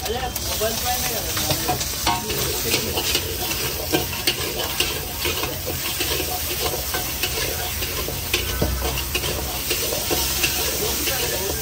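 Steel ladle scraping and clanking against an iron wok as egg fried rice is stir-fried, many sharp irregular scrapes and knocks a second over the rice sizzling in the hot pan.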